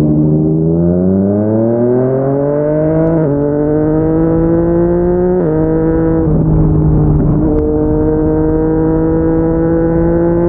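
Yamaha MT-09's inline three-cylinder engine through a Yoshimura R55 slip-on exhaust, accelerating under throttle. The pitch climbs, drops slightly at upshifts about three and five and a half seconds in, and then rises slowly again.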